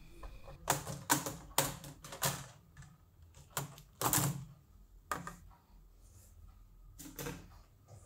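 Plastic keyboard frame of a Sony VAIO E Series laptop being pried off with plastic picks: a string of sharp plastic clicks and snaps as its clips release. The clicks come close together in the first half, with a longer one about four seconds in and a few more further apart after.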